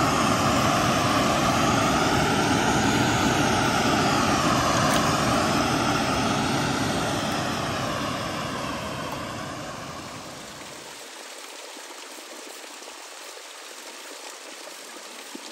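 Steady rush of flowing stream water with a slowly sweeping tone. It fades and thins out about two-thirds of the way through.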